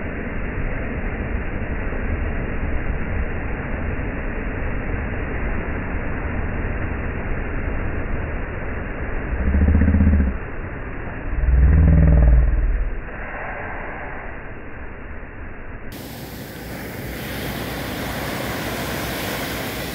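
Steady background noise, broken by two brief, loud, low bursts of motor-vehicle engine noise about ten and twelve seconds in.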